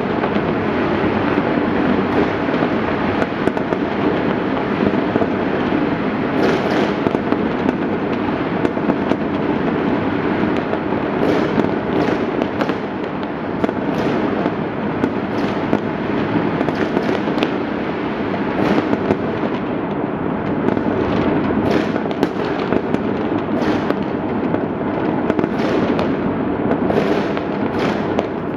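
Fireworks and firecrackers going off all at once from many points across a city: an unbroken, dense crackle with frequent sharp bangs, no let-up.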